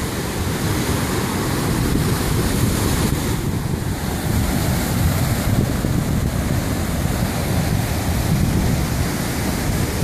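Rough surf breaking and washing over black lava rocks, a steady rush of whitewater, with wind rumbling on the microphone.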